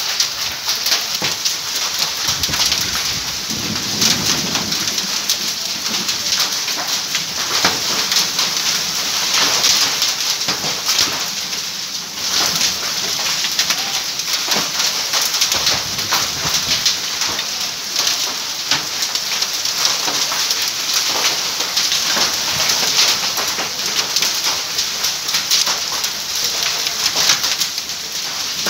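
Heavy rain mixed with hail, a steady dense patter of drops and ice pellets striking the street and nearby surfaces.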